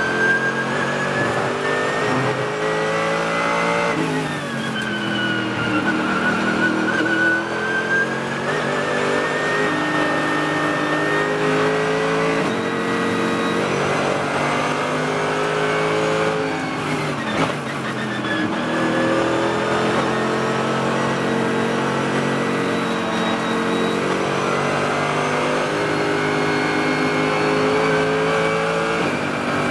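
Race car engine at racing speed from inside the cockpit, its note climbing and falling with revs and dipping sharply twice, about four seconds in and just past halfway.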